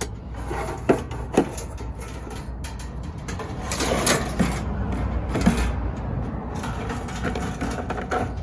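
Knocks and rustling as the parts of a diesel parking heater are handled, two sharp knocks about a second in, over a low steady rumble.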